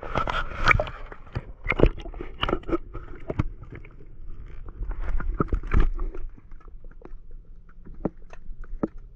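Muffled underwater sound from a submerged action camera: irregular clicks and knocks with a light crackle, a few of them sharper and louder about two seconds in and around the middle.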